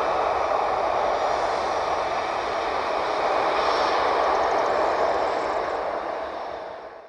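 Jet airliner's turbofan engines running loud and steady, a broad rushing roar that swells a little midway and fades away in the last second before cutting off.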